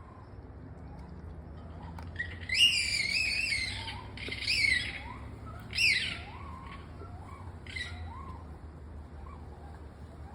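Unidentified wild animal calls, which the recorder takes for some kind of bird: three loud, harsh screams between about two and six seconds in, the first the longest, with fainter short rising whistles repeating through the rest.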